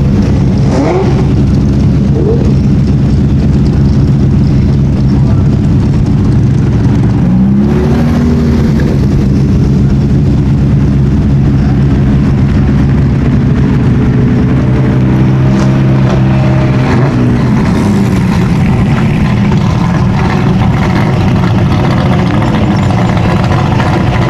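Sports car engines running with a loud, steady drone. Short revs rise and fall back about a second in, around eight seconds and again around seventeen seconds.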